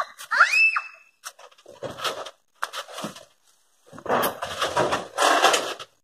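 A chicken squawks once right at the start. Then come bursts of rough scraping and rustling as the wooden chicken coop is shifted and handled on the Jeep's roof rack, the longest burst near the end.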